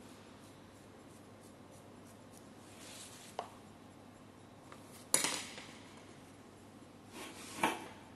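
Handling noises of painting tools and a small painted board on a tabletop: a small click about three and a half seconds in, a sharper clack about five seconds in, and another knock near the end as the board is picked up.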